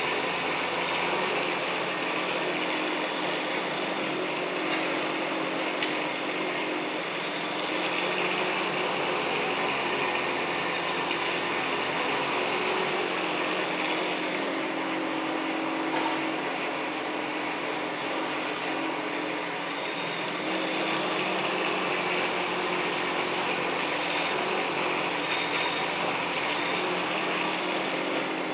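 Bobcat E10z mini excavator's small diesel engine running steadily under load as its hydraulic arm digs and swings buckets of sand, with an occasional short knock.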